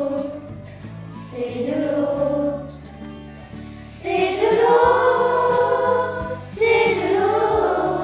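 Music: a choir singing long held notes over a steady low instrumental accompaniment.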